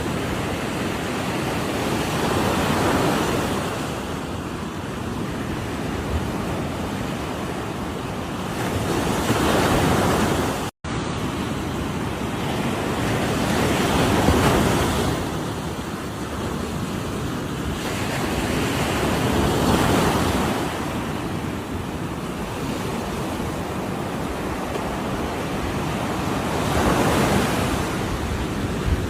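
Ocean surf breaking on the shore, each wave swelling up and washing back, with a new surge about every five to six seconds. The sound cuts out for an instant about eleven seconds in.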